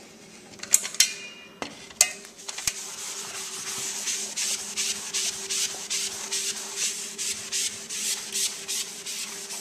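A few light knocks, then from about two and a half seconds in a melamine 'magic' sponge scrubbing back and forth on painted trim, about three strokes a second, rubbing off scuff marks.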